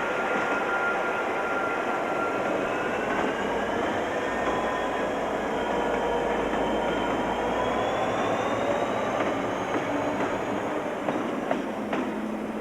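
Passenger train moving slowly on the rails: a steady rumble of wheels with several high squealing tones from the wheels that slowly rise and fall in pitch, and a couple of sharp clicks near the end.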